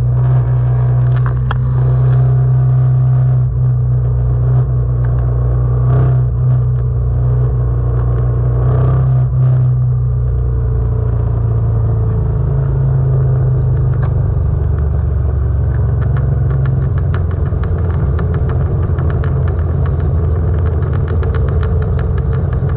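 Moto Guzzi V85TT's air-cooled V-twin running steadily while riding at parade pace; about halfway through its note drops lower and turns more pulsing.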